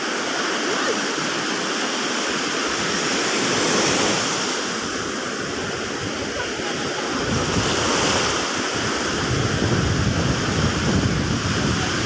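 Ocean surf breaking on a beach: a steady rush of waves that swells twice, with a low rumble of wind on the microphone from about seven seconds in.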